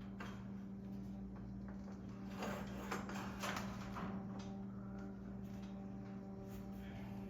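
Clicks and a short stretch of scraping and rattling from garage door spring hardware being worked by hand, over a steady electrical hum.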